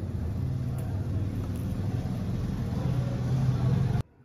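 A motor running with a steady low rumble that cuts off suddenly near the end.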